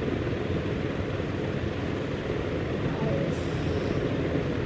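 Steady low rumbling background noise, with a brief high rustle about three and a half seconds in.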